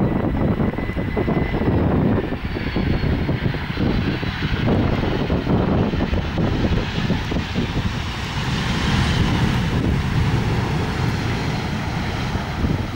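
McDonnell Douglas MD-11 freighter landing, its three jet engines giving a steady rumble as it flares and touches down. A faint high whine sounds over the rumble in the first few seconds.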